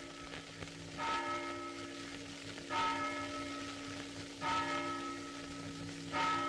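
Church bell tolling, four evenly spaced strokes about 1.7 seconds apart, each ringing on and fading before the next. Under it runs a steady low hum.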